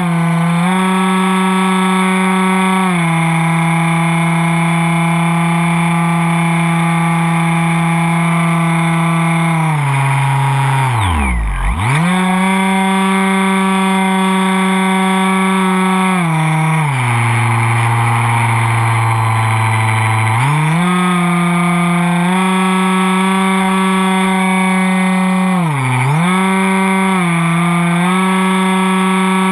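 Superfly radio-controlled model airplane's motor and propeller, heard from a camera on the wing: a steady droning whine that changes with the throttle. About a third of the way in the pitch plunges almost to nothing and comes straight back, a little past the middle it holds a lower pitch for a few seconds, and near the end it dips briefly twice.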